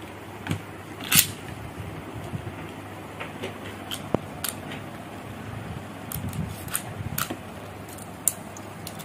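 Meteo L-Drago Beyblade launched with a ripcord launcher: a sharp rip and crack about a second in, then the metal-wheeled top spinning on the plastic stadium floor with scattered light clicks.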